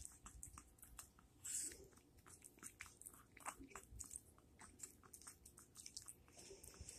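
Small dog chewing and nibbling a piece of sandwich bread taken from a hand: faint, irregular wet chewing clicks, with a brief louder sound about one and a half seconds in.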